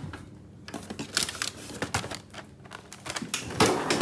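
Rummaging in a freezer drawer: an irregular run of clicks and rustles as frozen packages and a cardboard waffle box are shifted and pulled out, louder near the end.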